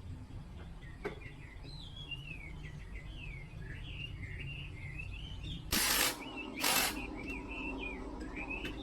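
Birds chirping and twittering steadily in quick, rising and falling notes, with a low background rumble. Two short, loud hisses cut in about six and seven seconds in.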